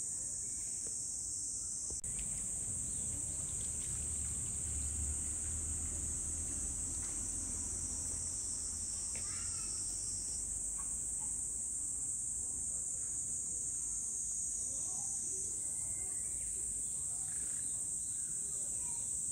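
A steady, high-pitched drone of insects, unbroken, over a low background rumble.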